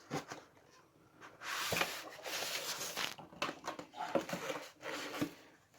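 Packaging being handled and opened: cardboard and plastic rustling and sliding in two stretches, with light clicks and knocks.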